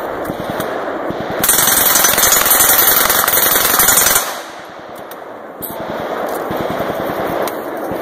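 Lage MAX-11 mkII open-bolt submachine gun firing full-auto in rapid strings of shots. The loudest string runs from about a second and a half to four seconds in, followed by a short lull, and then the firing resumes.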